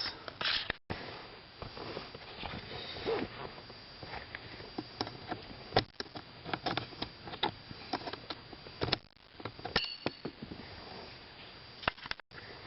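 Scattered small clicks and light knocks of plastic clips and a wiring connector being pried and unplugged with a flat-blade screwdriver under a car dashboard.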